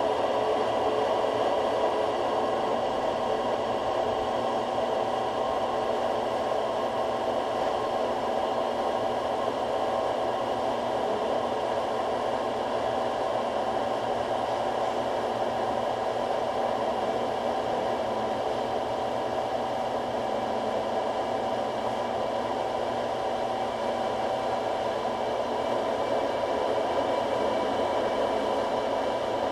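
Harbor Freight 4x6 metal-cutting bandsaw running at its slowest speed with the stock blade, cutting steadily through a thick-walled part. It is a continuous, even sound with a few faint steady tones running through it.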